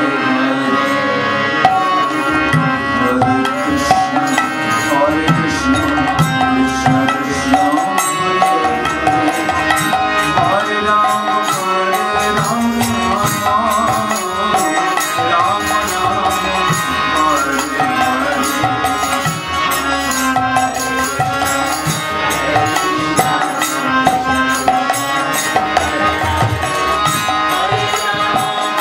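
Harmonium playing a steady devotional kirtan melody over fast, even hand-drum strokes, with no clear singing.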